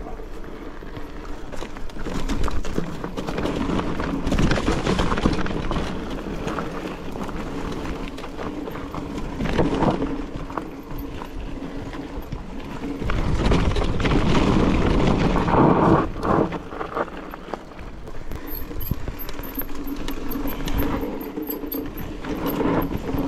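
Mountain bike ridden over a rough, rocky trail: tyres crunching on stones and gravel, with the bike rattling and a rumble on the microphone that swells louder in the middle stretch.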